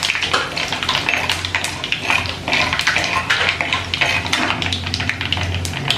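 Mustard seeds, fenugreek and dried red chillies crackling and spluttering in hot oil in a clay pot, while a steel spoon stirs and scrapes against the pot in quick, irregular clicks.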